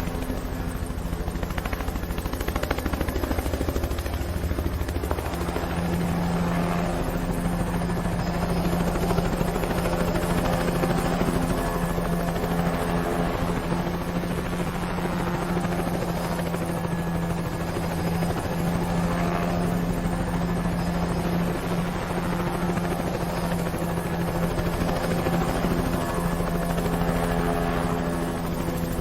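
Helicopter sound effect: steady, fast beating of the rotor over a continuous engine hum.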